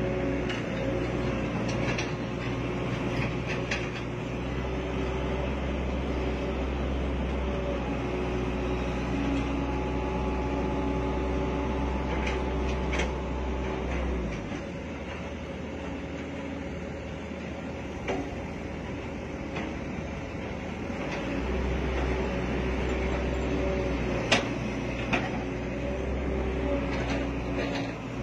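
Hitachi hydraulic excavators' diesel engines running under digging load, a steady hum with a low rumble that drops away for several seconds midway and then returns, with a few sharp metal knocks.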